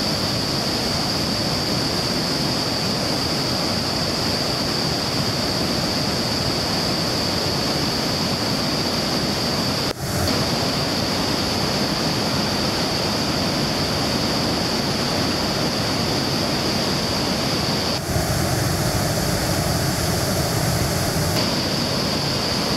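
Iguazu Falls' massive waterfalls pouring into the gorge: a steady, loud rush of falling water, with a high hiss over it. The sound breaks off for an instant about ten seconds in, and the high hiss drops out for a few seconds near the end.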